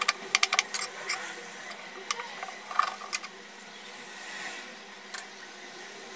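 Rapid knife chopping on a plastic cutting board as a shallot is minced, about eight strokes a second, stopping about a second in. A few single knocks of the knife on the board follow, the loudest about three seconds in.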